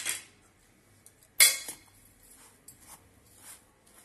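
Steel spoon clinking and scraping against a stainless steel bowl while stirring chopped vegetables, spices, semolina and curd together, with one sharp clink about a second and a half in and a few lighter taps later.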